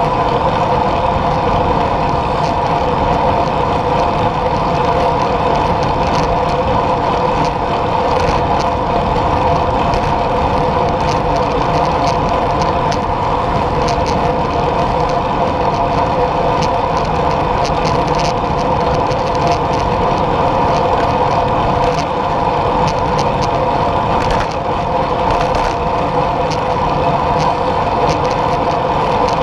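Steady rush of wind and road noise at a camera mounted on a vehicle moving along a paved road, with a constant hum and scattered small ticks from the road surface.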